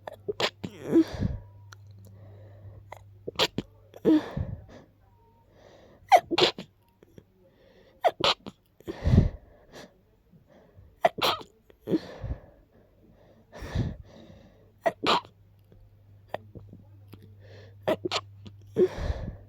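A long run of sharp sneezes from a person with a stuffy head cold, one every two seconds or so, with short breaths and sniffs between them.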